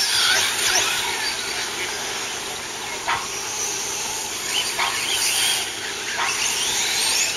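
Electric motors of radio-controlled cars whining as they race on a dirt track, the pitch rising and falling with throttle, with a few quick upward sweeps as they accelerate.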